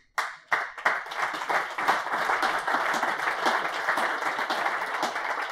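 Audience applauding steadily, a dense run of many hands clapping.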